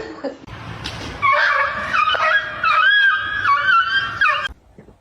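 A dog whining in one long, high, wavering cry lasting about three seconds, starting about a second in and breaking off suddenly near the end.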